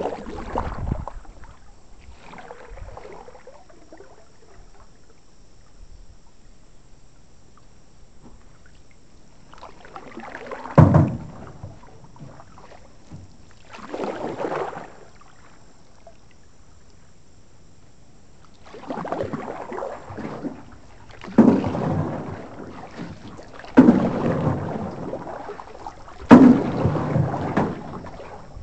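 Canoe paddle strokes beside an aluminum canoe: irregular splashy bursts every few seconds, several starting with a sharp knock, with long quiet stretches between them.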